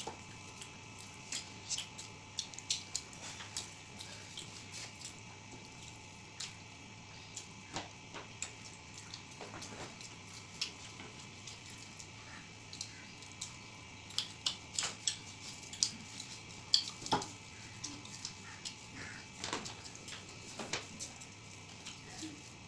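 Two people eating rice and curry with their hands from steel plates: irregular wet clicks and smacks from fingers mixing the rice and from chewing.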